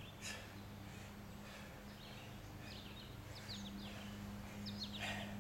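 Faint outdoor background: small birds chirping in short calls a few times, over a steady low hum.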